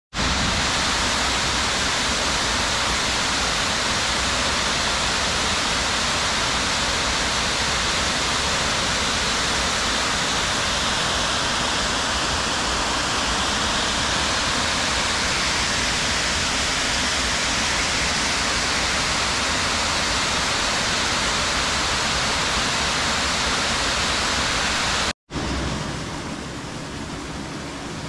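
Water pouring over a dam's weir wall into a pool: a loud, steady rush. About 25 seconds in it breaks off abruptly, and a quieter steady rush of water follows.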